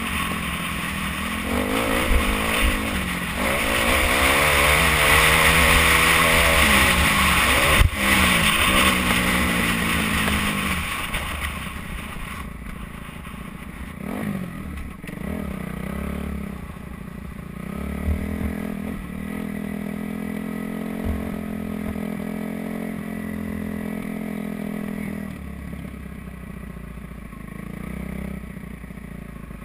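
Kawasaki KX250F four-stroke single-cylinder dirt bike engine revving up and down through the gears under a loud rushing noise on the helmet camera for about the first twelve seconds. It then runs at low revs with a few short throttle blips as the bike rolls slowly.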